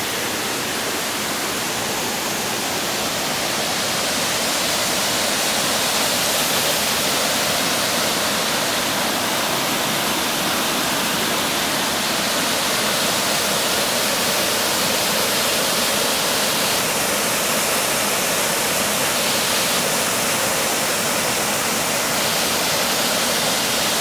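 Waterfall pouring over mossy limestone into a pool, a steady rushing of water that grows slightly louder over the first few seconds.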